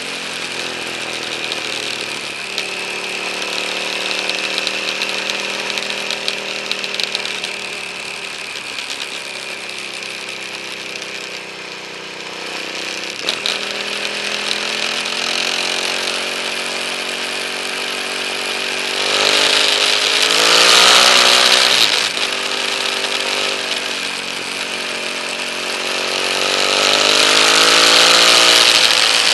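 KTM 950 Adventure's V-twin engine running under way, its note rising and falling with the throttle, with a sharp climb in pitch about twenty seconds in. Wind rushes over the camera microphone, loudest with that climb and again near the end.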